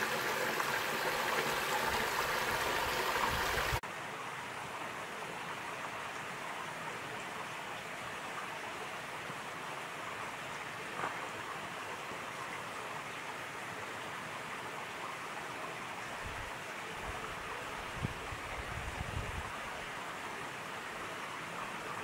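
A small waterfall splashing into a rock pool, a steady rush of water. About four seconds in it cuts off sharply to a fainter steady hiss, with a couple of faint clicks and some low rumbles near the end.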